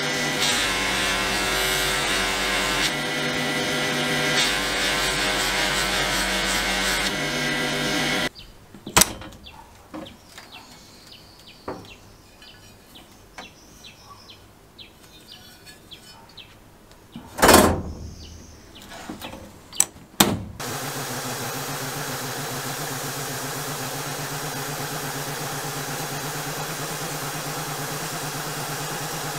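A bench buffing wheel running with a part held against it, which stops abruptly. Then comes a quiet stretch of clicks and clacks from the latch and door of a sandblasting cabinet, the loudest clack about two-thirds of the way in. This gives way to the steady hiss and hum of the cabinet sandblaster running.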